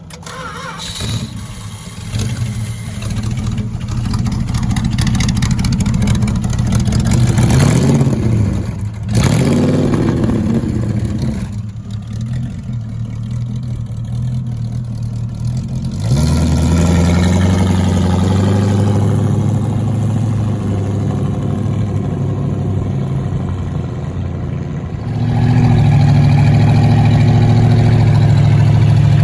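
1933 Chrysler coupe's engine starting, then running and being revved, with the engine note rising and falling. The sound of the engine changes abruptly about halfway through and again near the end, running louder and steadier.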